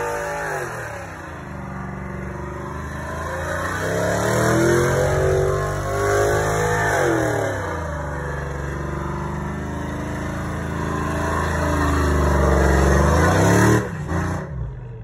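A pickup truck's engine revving up and down repeatedly under a loud hiss of spinning, screeching tires as the truck does burnout donuts. The sound cuts off abruptly just before the end.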